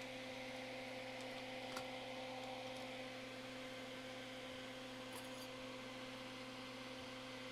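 Steady low electrical hum over a faint hiss, with one faint click about two seconds in.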